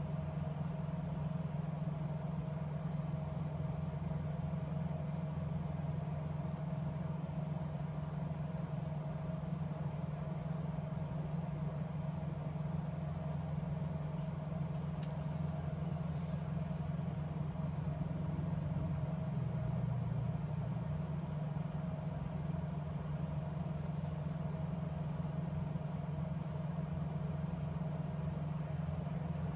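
Steady low mechanical hum with a faint constant tone above it, like a running motor or vehicle.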